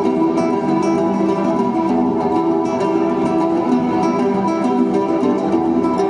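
Live acoustic guitar, rapid plucked notes ringing over sustained low strings in a steady flow.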